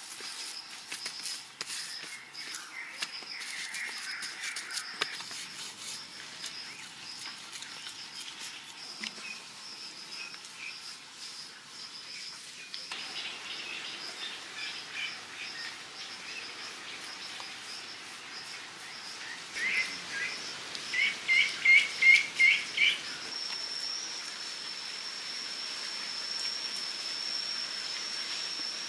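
Forest ambience: birds chirping over a steady high insect drone. About twenty seconds in, a bird calls in a quick run of repeated notes, the loudest sound. Near the end the insect drone settles into one constant high whine.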